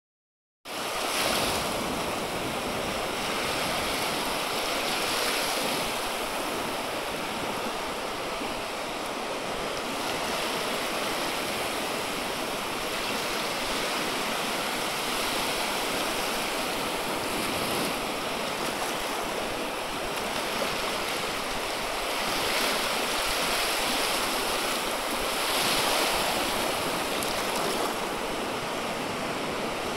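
Baltic Sea surf: fairly big waves breaking and washing in, a steady rush that swells and eases every few seconds.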